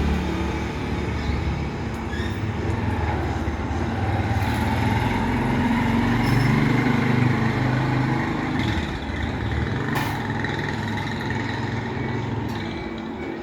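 A large engine running, its note rising and falling.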